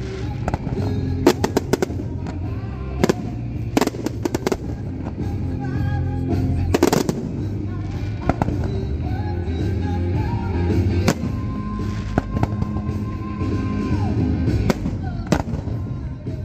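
Aerial fireworks bursting: a string of sharp bangs, some in quick crackling clusters, with music playing underneath.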